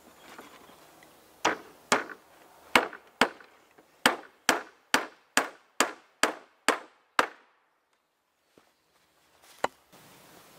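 Hammering on a wooden shake roof with a hand tool: about a dozen sharp blows, roughly two a second, then a pause and one last blow near the end.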